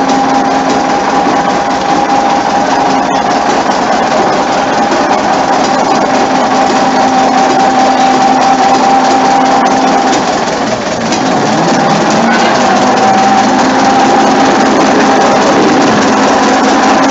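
Diesel engine of the small shunting locomotive Crabtree running with a steady drone. About ten seconds in it dips briefly, then settles back on a slightly lower note.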